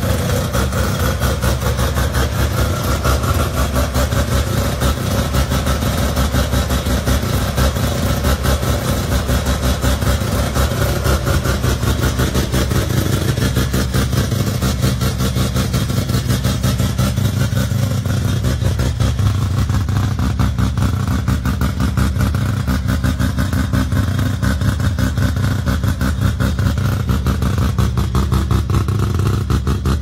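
Rotary-engined Datsun running with a steady, rapid pulsing exhaust note.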